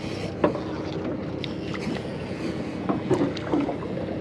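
A boat's outboard motor idling with a steady low hum under wind and water noise, with a few faint clicks and distant voices.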